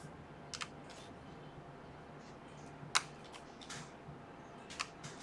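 Small sharp clicks from reassembling an iPhone 7 Plus by hand: flex cable connectors being pressed onto the logic board. There are four or five scattered clicks, the loudest about three seconds in, over a faint low steady hum.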